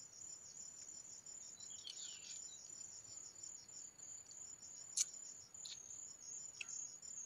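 Insects chirring: a steady, pulsing high-pitched trill, with a few sharp clicks in the second half.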